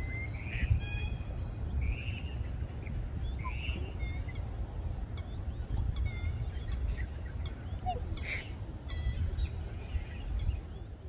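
Waterfowl calling: short honking calls repeated several times in the first four seconds, then softer chirps and clicks, over a steady low rumble.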